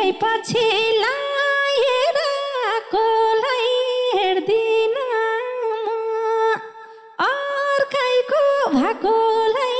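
A woman singing solo and unaccompanied in Nepali dohori folk style: a long, drawn-out vocal line with bending, ornamented notes. It breaks off briefly about seven seconds in, then carries on.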